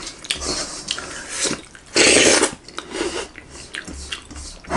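Bare fingers scraping and squishing thick aato porridge around a metal karahi, with many short wet smacks and clicks. About two seconds in comes one loud, breathy half-second burst.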